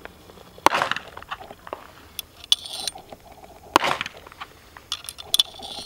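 .22 LR cartridges being dropped one at a time into the loading port of a Henry H001 lever-action rifle's tube magazine. They make sharp metallic clinks, two louder ones and several lighter ticks.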